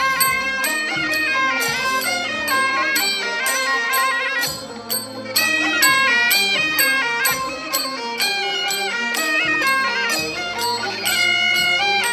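Folk-style instrumental music: a reedy wind instrument carries a stepping melody over a steady percussive beat, with a short drop in loudness around five seconds in.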